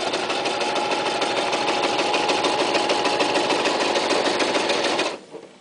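Toyota Super Jeans J34 electric sewing machine running at steady speed, stitching through thin leather, with a fast, even needle beat over a steady motor whine. It stops suddenly about five seconds in.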